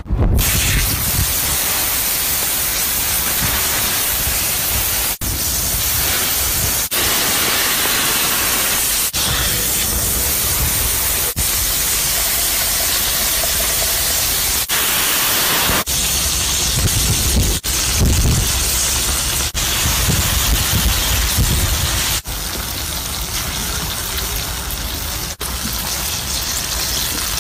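Eel fillet sizzling in fat on a stone slab heated over a wood fire: a steady frying hiss, cut short by brief breaks every second or two.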